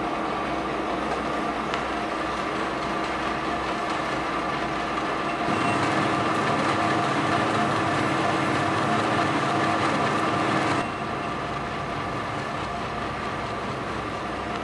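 Metal lathe running, with a steady gear whine over mechanical clatter. It gets louder and busier from about five and a half seconds in until about eleven seconds, then drops back to the earlier level.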